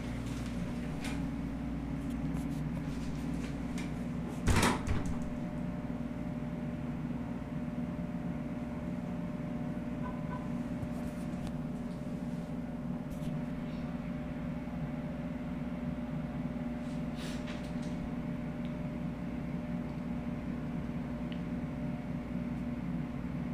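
Steady low hum of an indoor lobby's room tone, with a single loud knock about four and a half seconds in and a few faint clicks later on.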